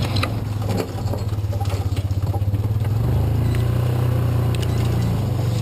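Yamaha Rhino side-by-side's engine running at low trail speed, a steady low drone whose note shifts about three seconds in.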